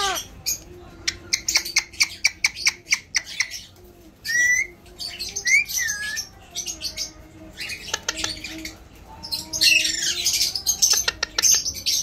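Alexandrine parakeet calling: a quick run of short chirps, two rising whistles, then harsh screeching squawks near the end.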